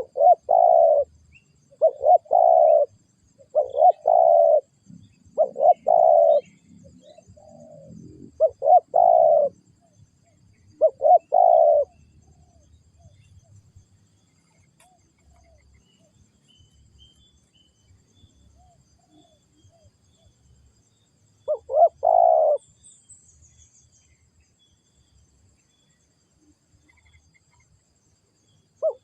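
Spotted dove (tekukur) cooing: a string of loud coo phrases about every second and a half, a long pause, then one more phrase about three-quarters of the way through, with fainter coos in between.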